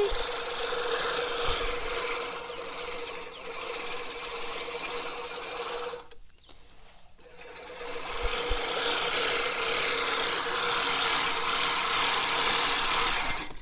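Manual push reel mower being pushed through grass, its spinning reel blades whirring steadily as they clip. It goes quiet briefly about six seconds in, then picks up again.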